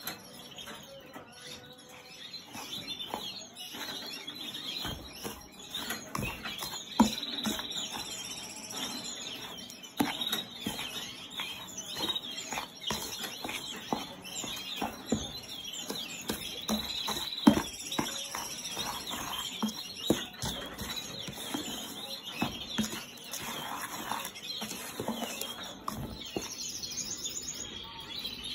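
Small birds chirping and trilling throughout, with scattered knocks and rustles as dry egg-food mix is stirred in a plastic tub. The sharpest knocks come about seven and seventeen seconds in.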